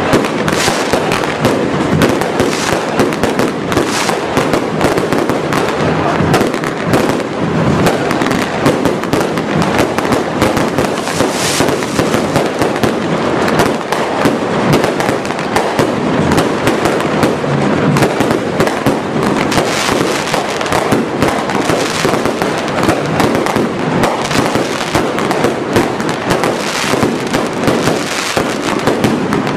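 Fireworks display going off in a continuous barrage of bangs and crackles, with no pause.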